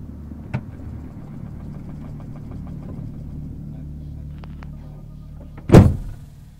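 Car engine idling with a steady low hum, heard from inside the cabin, with a small click about half a second in. Near the end the raised bonnet is slammed shut with one loud bang.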